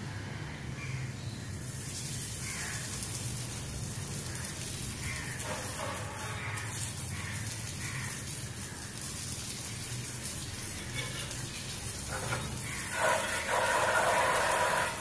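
Water spraying from a plastic hand-held hose spray gun onto a motorcycle: a steady hiss with splashing. Near the end a louder, rougher sound comes in for a couple of seconds.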